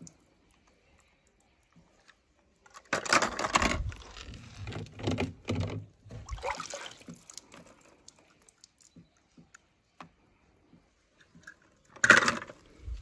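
Water splashing and small die-cast toy cars clattering against each other and a plastic tub, in short bursts about three seconds in and again near the end, with a quiet stretch between.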